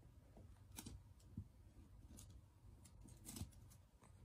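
Near silence with a few faint, scattered taps and clicks from a small rabbit moving about and nudging a soft ball on the floor of its pen, the clearest about a second in and a little after three seconds in.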